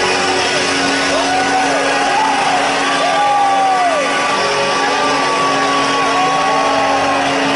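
Droning pre-show intro music filling a concert arena, with a steady low note and a long held higher tone, while the crowd shouts and whoops over it in rising-and-falling calls.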